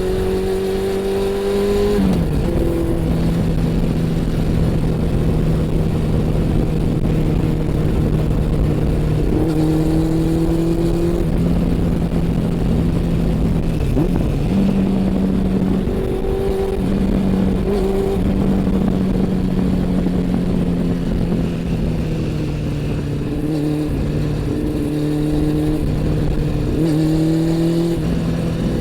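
Honda CB400 Super Four's inline-four engine and exhaust under way while riding, the engine note mostly steady, dropping in pitch about two seconds in and shifting again around the middle and near the end with throttle and gear changes. A steady rush of wind and road noise runs underneath.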